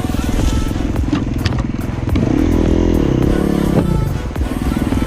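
Enduro dirt bike engine running under way, revving up about two seconds in and dropping back near four seconds, with a few sharp clattering knocks.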